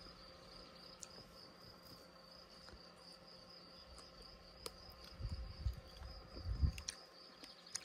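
Crickets singing steadily in one high-pitched tone, with a few soft low thumps about five to seven seconds in.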